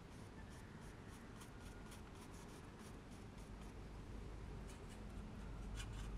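Flat watercolour brush stroking wet paint across watercolour paper: a faint, scratchy brushing in short strokes, about three a second, as a muted grey wash is laid on.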